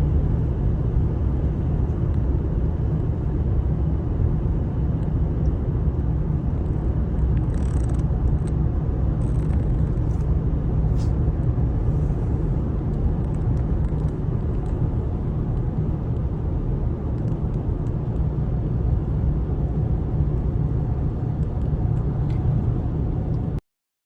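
Steady low rumble of a car driving, heard from inside the cabin, with a few faint ticks partway through; it cuts off abruptly near the end.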